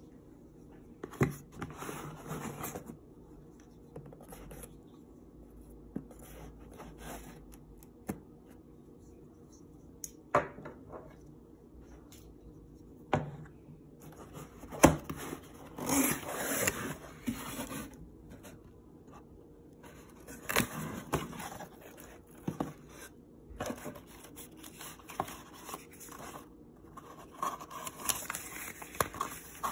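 A cardboard shipping box being handled and opened by hand: scattered knocks and clicks against the table, cutting and tearing at the box, and scraping and rustling of cardboard and honeycomb paper packing. The sharpest knock comes about halfway through, and the paper rustles near the end as a booklet is drawn out of the packing.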